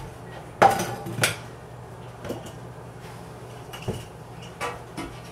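Dishes clattering on a kitchen counter: a plate set down, with two sharp clinks about a second in, then a few lighter knocks.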